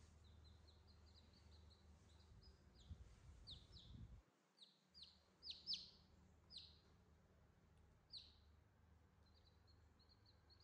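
Newborn chicks peeping: a string of short, high peeps, each sliding downward, loudest in the middle, with quicker, softer chirps near the start and again near the end.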